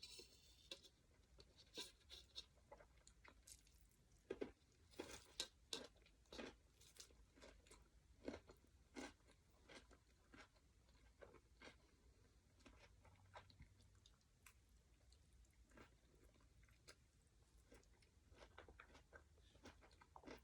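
A person chewing a mouthful of noodle papaya salad with cucumber and lettuce: faint, irregular crunches and mouth clicks, busiest from about four to nine seconds in.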